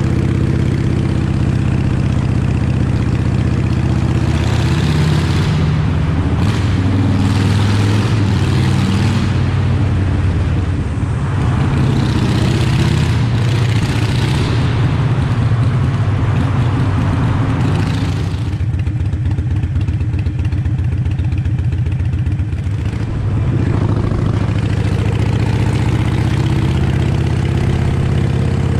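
Harley-Davidson Iron 883 Sportster's V-twin running through Vance & Hines Shortshots exhaust, heard from the rider's seat on the move, partly inside a road tunnel. The engine pulls up through the revs early on, eases off about two-thirds of the way through to a slower, coarser beat, then picks up again a few seconds later.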